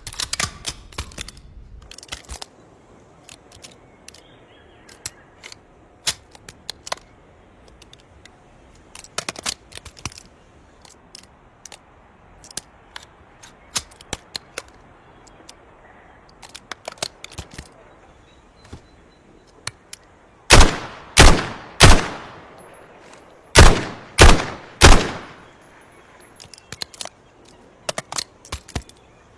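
Labra submachine gun firing: a quick burst at the start, then scattered quieter shots and clicks, then six loud single shots with ringing tails, evenly spaced about half a second to a second apart.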